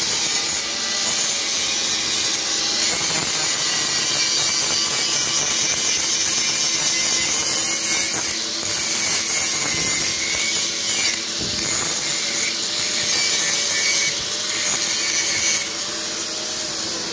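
Handheld angle grinder grinding steel plate, a loud steady grinding hiss over the motor's whine, easing briefly several times as the disc's contact with the steel changes and dropping lower near the end.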